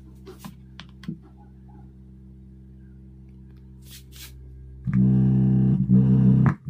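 Woofer driven by a homemade IC 4558 bass-filter amplifier giving a steady low hum, with a few small handling clicks. About five seconds in, the hum jumps suddenly to a loud buzz as the audio plug is handled and pushed into the phone, then cuts off just before the end.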